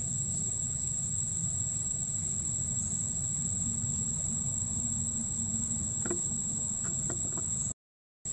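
Steady, high-pitched drone of insects, unbroken, over a low background rumble, with a few faint clicks about six seconds in. The sound cuts out completely for about half a second near the end.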